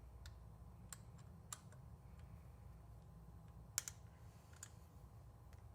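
A few faint, sharp clicks from a hand tool working the bolts of a bike's handlebar stem plate as they are tightened, the loudest a quick double click about four seconds in, over a low steady hum.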